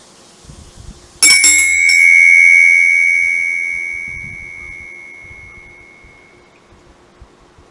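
Small brass meditation handbell rung with a few quick strikes about a second in, then a clear ringing tone that slowly fades away over about five seconds, signalling the close of the meditation.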